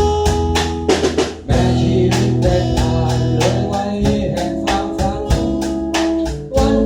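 Band music with a steady drum beat, electric guitar and organ-like chords, and a singing voice coming in.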